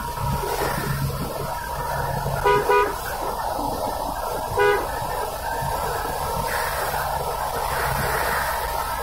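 Steady road and engine noise of a car driving at speed, heard from inside the cabin. A vehicle horn gives two short toots in quick succession about two and a half seconds in, and one more short toot a couple of seconds later.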